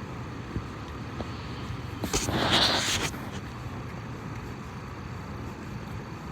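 Steady street traffic noise. About two seconds in, a loud hiss lasts roughly a second.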